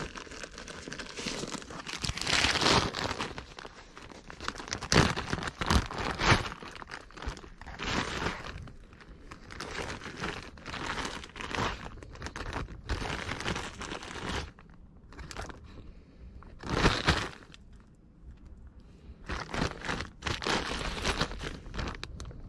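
Clear plastic zip-top bag crinkling on and off as hands rummage through it for screws.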